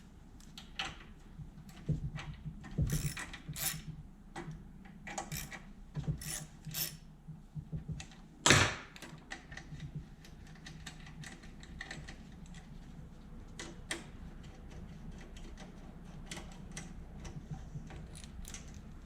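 Two 10 mm bolts being loosened and removed from a small-engine carburetor with hand tools: irregular metallic clicks and clinks, with one louder knock about eight and a half seconds in.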